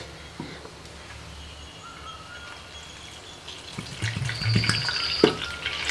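Water poured from a terracotta clay bottle into a small steel pan of dry flour and jaggery, starting about three and a half seconds in, with a sharp knock near the end.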